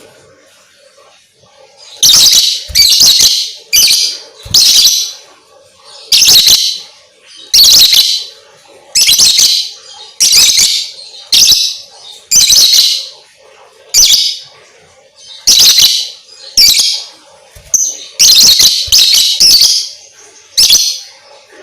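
Lovebird calling loudly, a run of shrill, harsh chirps repeated about once a second with short pauses between them.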